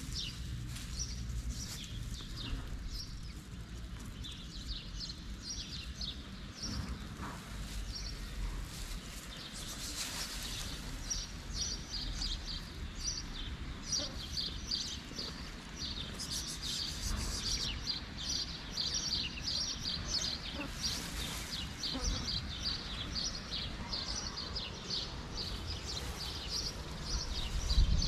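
Small birds chirping in quick, high notes over and over, busier in the second half, over a low outdoor rumble that grows louder near the end.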